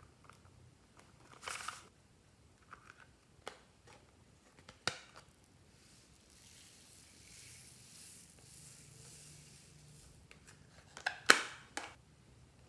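Slime being handled and mixed, giving scattered sticky clicks and crackles. A soft hiss runs midway, and a quick run of louder clicks comes near the end.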